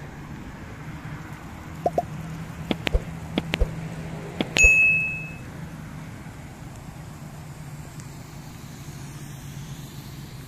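A run of sharp clicks and taps, then a single metallic ding that rings for about a second, over a steady low hum.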